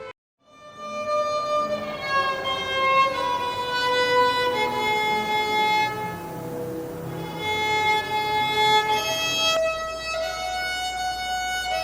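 Solo violin playing a slow melody of long, held bowed notes, starting after a brief moment of silence. The playing is that of a learner who has the basics but not yet the polish.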